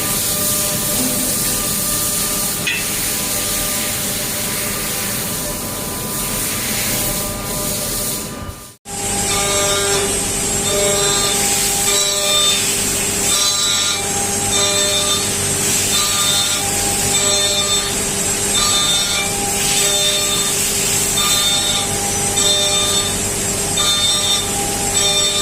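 CNC machine tools cutting metal. A steady whirring cut stops abruptly about nine seconds in, and a different cut follows in which a grinding noise carries tones that come and go about once a second.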